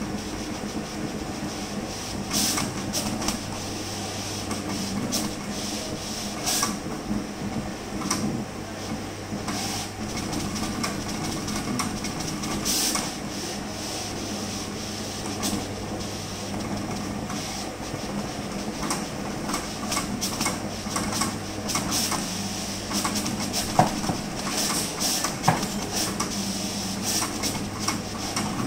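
Printing machine running: a steady low motor hum and a high whine, with irregular clicks and ticks from its mechanism and two sharper clicks near the end.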